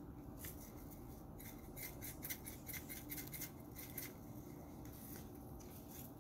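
Faint small handling sounds: scattered light clicks and rubbing of things being handled on a table.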